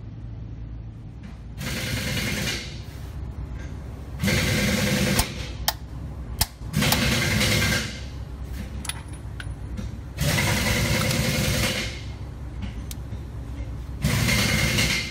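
Pneumatic ratchet running in five bursts of a second or two each, spinning the nuts on the exhaust manifold studs. A couple of sharp metal clicks fall between the bursts.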